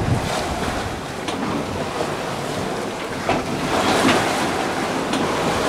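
Sea rushing along the hull of a sailing yacht underway, with wind on the microphone; about three seconds in a wave breaks against the side of the boat in a louder, hissing surge of spray that fades over the next second or so.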